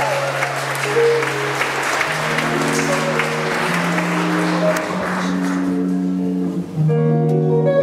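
Audience applause over a slow electric guitar intro of long, held chords. The applause dies away about six seconds in, leaving the guitar alone.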